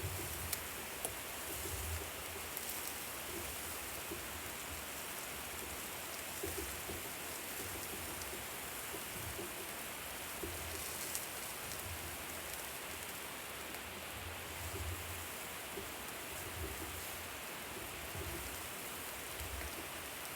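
Steady sizzling of food on a hot barbecue grill, with faint scattered crackles and a few soft low bumps.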